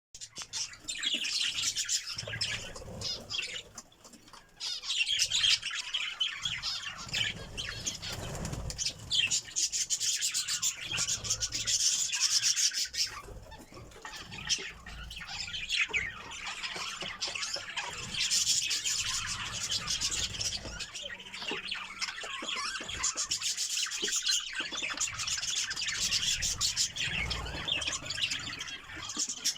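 A colony of budgerigars chattering and warbling together in a dense, continuous stream of chirps, with wings fluttering among them; the chatter thins briefly a few times.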